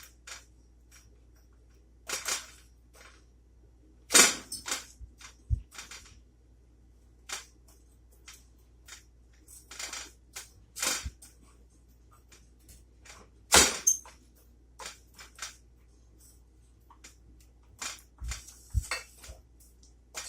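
Spoon stirring brown sugar, butter and syrup in a saucepan, with irregular scrapes and sharp knocks against the pan; the loudest knocks come about four seconds in and again past the middle.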